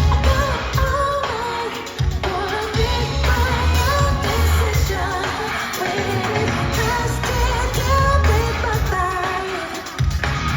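Live pop concert music over a loud PA: a singer's voice holding and gliding over a band with heavy bass. The bass cuts out briefly about two seconds in and again near the end.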